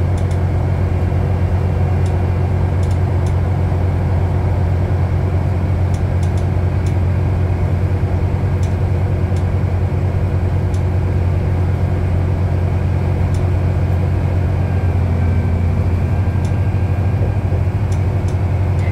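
Inside a 2010 New Flyer DE60LF articulated hybrid bus under way: its Cummins ISL diesel engine and Allison hybrid drive make a steady low drone, with scattered light rattling clicks.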